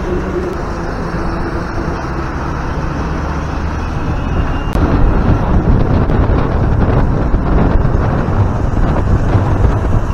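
Wind buffeting a motorcycle rider's microphone while riding in traffic, with engine and road noise underneath. It gets louder about halfway through.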